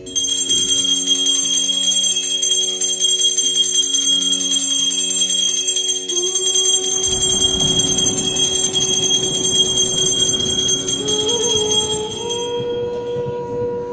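Background music: a steady, shimmering bell-like ringing over held low notes, with a melody rising in steps about halfway through; the ringing fades out near the end.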